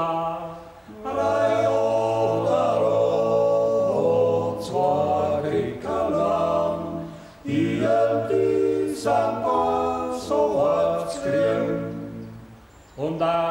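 Male vocal quartet singing a folk song unaccompanied, in close multi-part harmony over a low bass voice. The phrases break off briefly about half a second in, near the middle and near the end.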